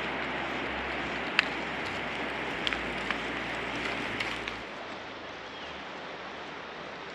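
Footsteps and a trekking pole on loose slate scree: a few sharp clinks of stone over a steady hiss, which drops softer about four and a half seconds in.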